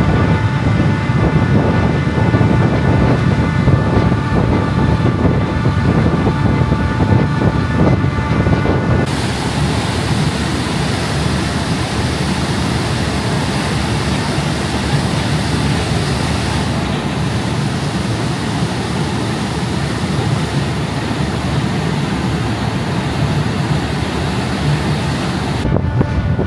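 Fast ferry underway: the fastcraft's engines running as a loud steady drone with a high whine. About nine seconds in it changes abruptly to the rushing hiss of the churning wake and wind, and the engine drone returns just before the end.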